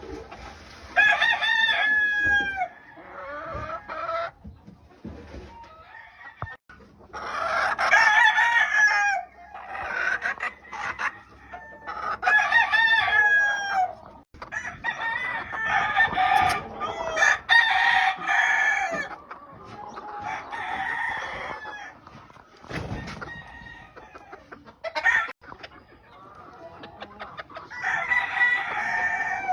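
Gamefowl roosters crowing, about seven crows one after another across the stretch, with short gaps between them.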